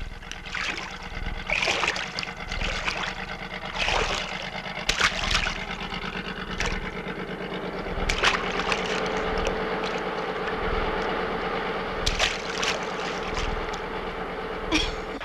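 A boat engine chugging steadily over river water, with a few sharp knocks.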